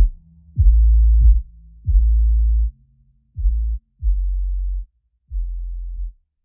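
Background electronic music: a run of deep sub-bass notes, each starting with a sharp attack and held briefly, getting quieter toward the end.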